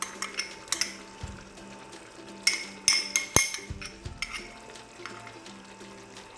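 Metal spoon clinking and scraping against a cooking pan as a sauce is stirred, with a cluster of sharper clinks about halfway through.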